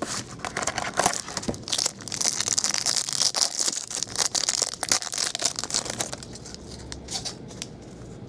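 Plastic wrapping crinkling and tearing as a sealed box of football trading cards is opened by hand, with dense crackling that is loudest in the middle and dies down near the end.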